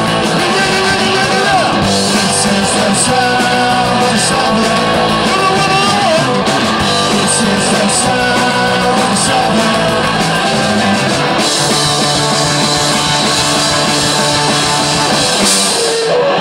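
Live punk rock band playing: electric guitars, bass and drums with cymbals, loud and continuous, with the cymbals dropping out near the end.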